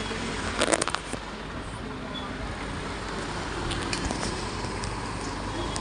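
Plastic clicks from a boAt headphone's earcup shell being worked open by hand: a quick cluster of sharp clicks about half a second to a second in, and a few fainter ones around four seconds. A steady background of street traffic noise runs underneath.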